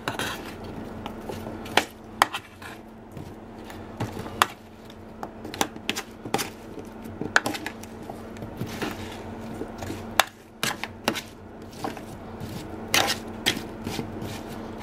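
A metal spoon scraping and clinking against a metal baking tray while diced butternut squash is tossed in it, in irregular clinks and scrapes. A steady low hum runs underneath.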